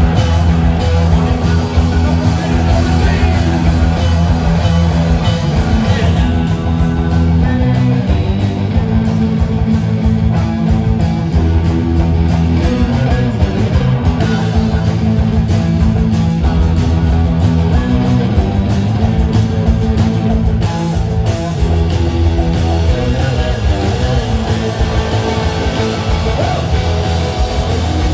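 Live rock band playing loud, heard from the audience: electric guitars, bass guitar and drum kit.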